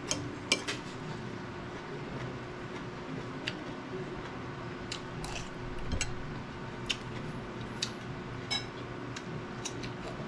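Eating sounds: irregular crisp clicks and crunches of chewing raw green vegetables, with small utensil ticks, over a faint steady hum.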